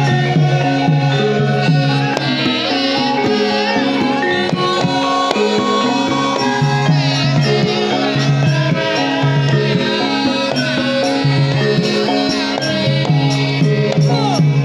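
Javanese gamelan music: layered ringing metallophone and gong tones in a steady repeating pattern, driven by hand drumming.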